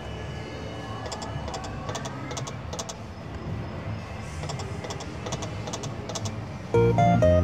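Konami 'All Aboard' video slot machine's game sounds as the reels spin: a soft looping tune with short sharp clicks every so often as reels stop. Near the end a much louder jingle of bright notes breaks in.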